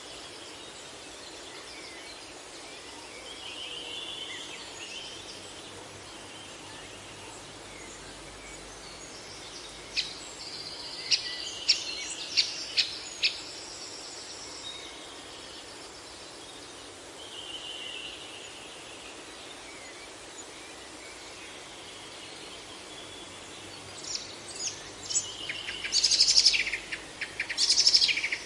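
Several birds calling and singing over a steady outdoor hiss: soft calls now and then, a run of sharp chirps about a third of the way in, and busier, louder song in the last few seconds.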